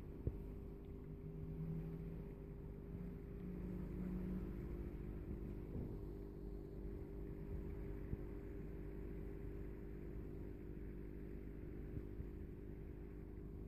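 Steady low electrical hum of running aquarium equipment (air pump and filter), with a short low tone stepping up in pitch a couple of seconds in and a single click near the start.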